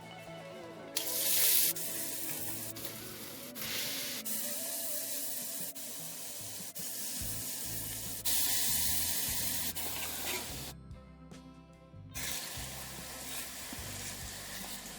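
A steady hiss of cooking, in several short clips that start and stop abruptly, with a brief near-gap about eleven seconds in, over faint background music.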